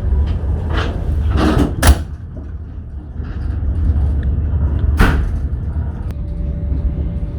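Passenger train rolling slowly into a station, heard from inside the carriage: a steady low rumble with sharp knocks of the wheels and couplings, three close together in the first two seconds and another about five seconds in.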